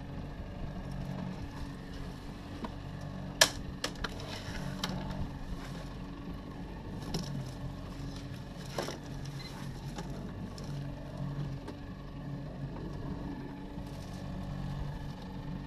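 Outboard motor running steadily at low speed, with water noise around the hull and scattered knocks; one sharp knock about three and a half seconds in is the loudest sound.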